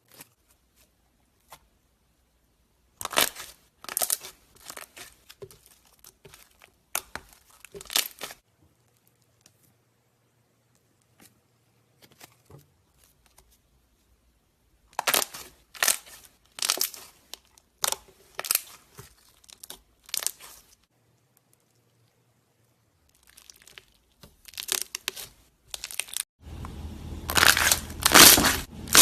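Slime being pressed and squeezed by hand, crackling and popping in short bunches of sharp snaps with silent pauses between, turning into dense, loud crackling near the end.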